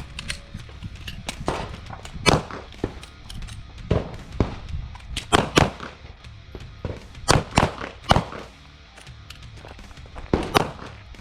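Pistol shots from several shooters firing on a range line: about a dozen sharp reports at uneven intervals, some in quick pairs, over background music.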